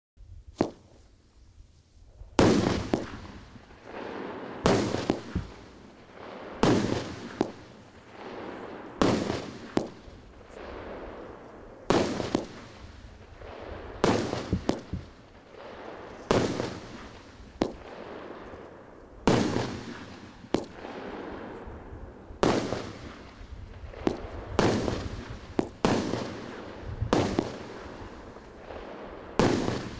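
Consumer firework cake firing its shots one after another: a sharp bang every one to two seconds, each trailing off in a fading rumble.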